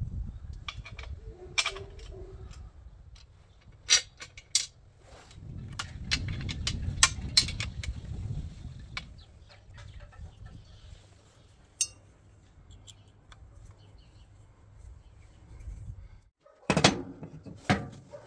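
Light metallic clicks and clinks of steel parts and a screwdriver being handled while fitting a belt grinder's spring-tensioned wheel bracket. About sixteen seconds in, the sound breaks off, then a quick run of louder clanks follows as steel brackets are set down and moved on a workbench.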